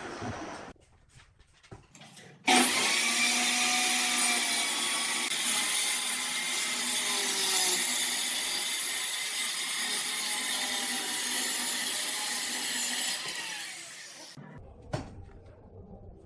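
A power tool working wood: a loud, steady hiss that starts abruptly about two and a half seconds in and dies away near the end, followed by a single sharp knock.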